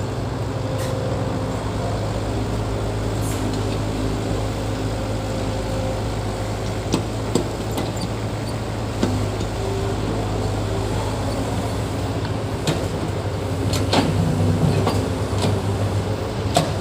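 Diesel engine of heavy earthmoving equipment running steadily, with a few sharp metallic clanks and knocks scattered through it.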